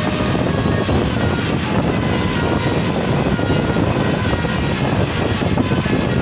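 Steady, unbroken rumble of vehicle engine and road noise while on the move, heaviest in the low end.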